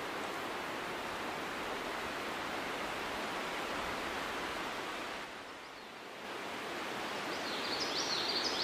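Steady rustling hiss of outdoor background noise, easing off for about a second two-thirds of the way through. Near the end comes a short run of high chirps.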